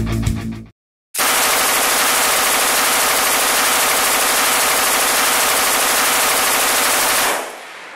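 MG-34 machine gun firing one long unbroken burst of about six seconds, starting about a second in and cutting off near the end with a short fading tail. The tail end of a heavy-metal guitar music sting is heard at the very start.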